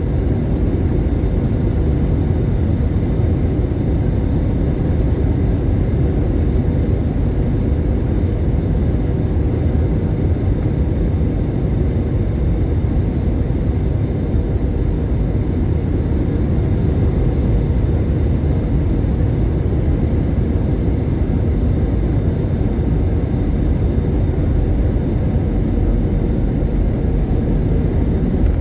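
Airbus A320 cabin noise: the steady low rumble of the jet engines and rushing air, unchanging, with a faint steady hum over it.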